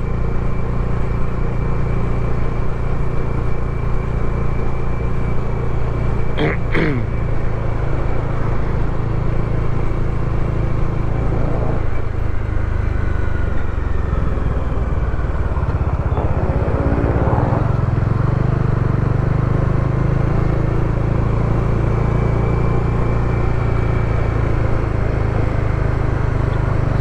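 Motorcycle engine running steadily under way, with road and wind noise, heard through a lavalier mic inside a closed full-face helmet.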